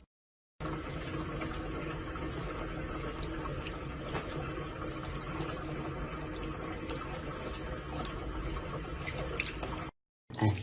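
Tap water running steadily into a bathroom sink, with scattered faint ticks. It starts about half a second in and stops shortly before the end.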